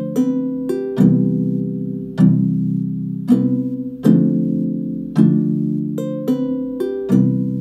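Software harp music made in Ableton Live 9, played back through a loudspeaker. Plucked chords start about once a second and ring out, fading before the next, with short higher plucked notes between them.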